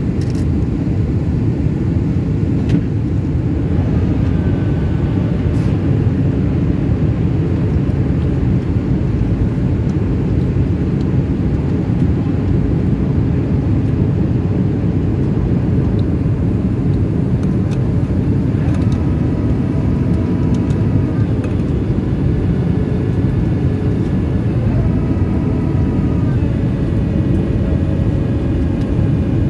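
Steady low rumble of jet engines and airflow inside the cabin of a Boeing 737 airliner in flight. Faint higher whining tones come and go, shifting in pitch, mostly in the second half.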